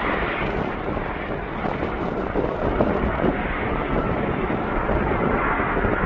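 Aircraft engine noise, a steady rushing sound, with wind buffeting the microphone.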